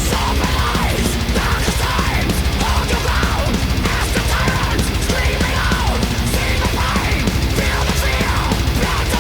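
Loud heavy metal music with distorted guitars and a fast, steady drum beat.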